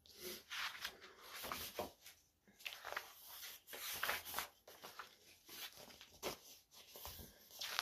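Faint rustling and soft taps of a paperback picture book being handled, its cover flipped open and pages turned.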